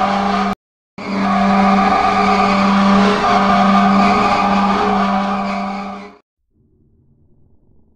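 Loud, harsh drone held at one steady pitch, typical of horror-film sound design. It breaks off abruptly for a moment just under a second in, comes back, and fades away about six seconds in, leaving only faint low noise.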